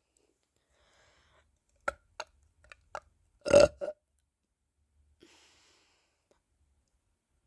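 A person burping: a few short clicks, then one loud burp a little past halfway, with another burp starting right at the end.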